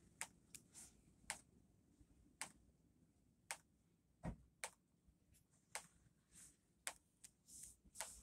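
Near silence broken by faint, scattered clicks and taps at irregular intervals, about two a second.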